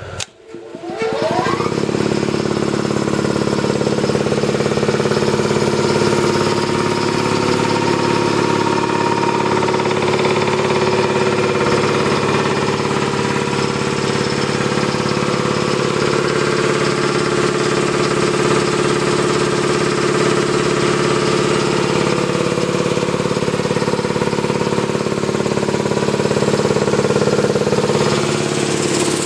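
Ingersoll Rand 10 hp three-phase electric air compressor starting up: the motor and belt-driven pump spin up within about a second, then run steadily under load. It shuts off right at the end.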